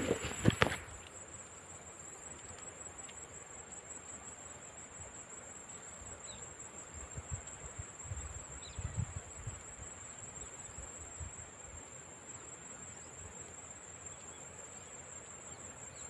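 Steady high-pitched chirring of insects. A couple of sharp knocks come about half a second in, and a few soft low thumps follow in the middle.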